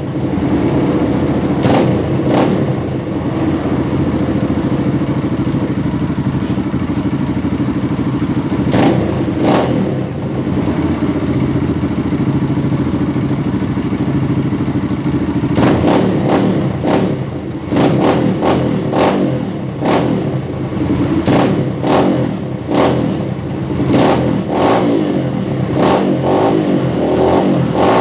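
Kawasaki KLX150BF's air-cooled single-cylinder four-stroke engine running through an FMF F4.1 full exhaust. Over the steady exhaust note come many short sharp knocks, more frequent in the second half.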